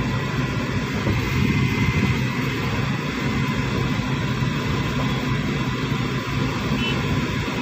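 Steady noise inside a car: the low rumble of the running engine with an even hiss over it.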